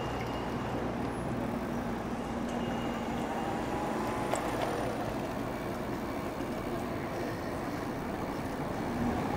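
Steady road and traffic noise heard from a moving e-bike: a low rumble with a faint steady hum, and a faint click about four and a half seconds in.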